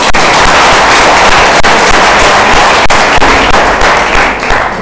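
Audience applauding: loud, dense clapping that eases slightly near the end.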